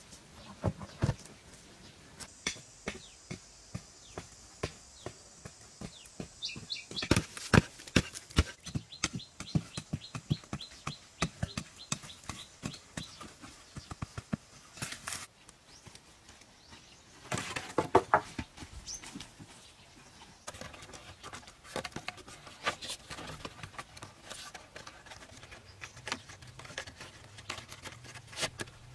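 Hand tools knocking and chopping on wood and earth, a long run of sharp strokes with a fast, dense stretch about seven to thirteen seconds in and another loud flurry around eighteen seconds. A thin, high, steady tone sounds for a few seconds near the start.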